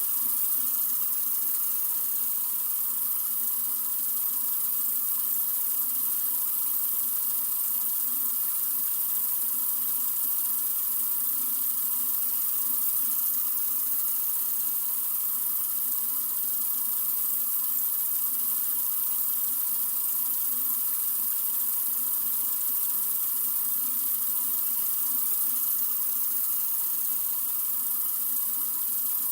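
Water running steadily from a sink faucet, a constant hissing stream with no change.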